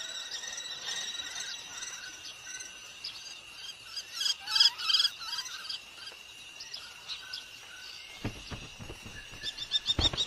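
Several birds chirping and calling, with a louder flurry of chirps about halfway through, over a steady high tone like an insect's drone. Soft low thumps come in near the end.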